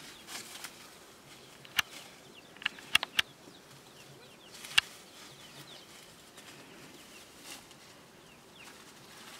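Several sharp clicks or snaps in the first half, a tight cluster of three among them, over a quiet outdoor hush with faint short bird chirps.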